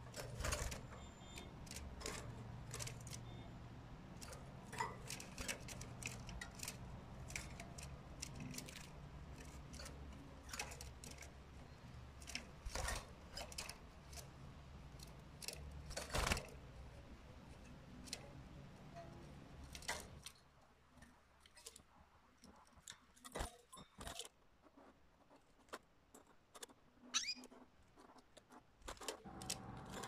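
Canaries in a wire cage: scattered light clicks and taps from the birds moving about the cage and its seed basket, over a low steady hum that stops about two-thirds of the way through. A few short high chirps come near the end.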